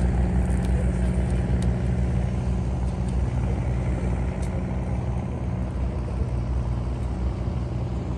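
Small motorboat engine running with a steady low drone that slowly fades as it moves off, with a few faint clicks over it.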